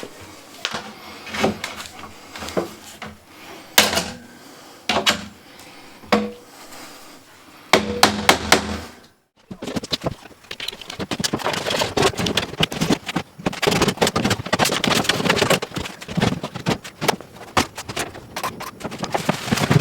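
Wooden packing crate being opened by hand: metal lid clips unhooked with scattered clicks and wooden knocks, then after a short break a denser clatter and scraping as the lid and crate parts are handled.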